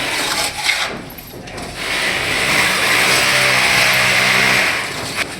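A construction machine's engine running steadily during concrete casting, growing louder about two seconds in and easing off near the end.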